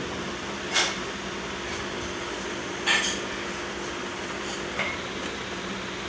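Three sharp clinks, about two seconds apart, over a steady low hum.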